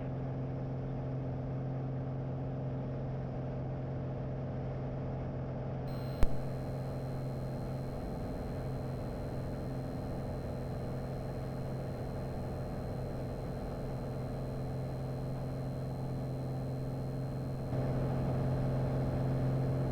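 Piper Arrow's engine and propeller droning steadily in the cockpit during the climb, a click about six seconds in, getting a little louder near the end.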